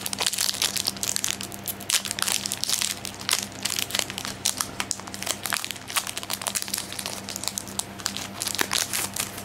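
Foil wrapper of a Pokémon trading card booster pack being torn open and crinkled by hand: a dense run of sharp crackles that stops right at the end.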